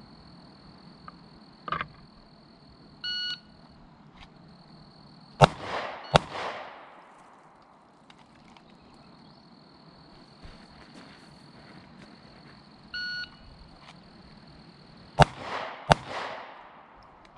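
Two rounds of a shot-timer drill: an electronic beep, then about two seconds later two quick pistol shots under a second apart, each a sharp crack with an echo. The whole beep-and-two-shots sequence happens twice.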